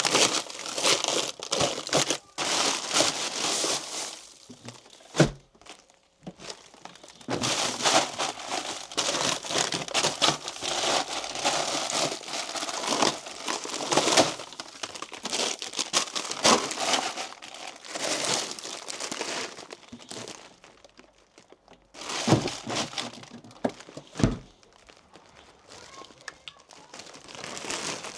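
Plastic bags of frozen vegetables crinkling and rustling in irregular bouts as they are rummaged through and handled, with a few dull knocks in between.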